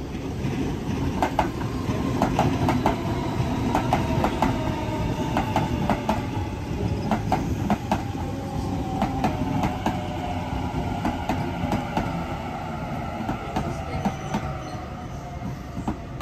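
Waratah double-deck electric train moving past, its wheels rumbling and clacking over rail joints, with a drawn-out whine that slowly falls in pitch.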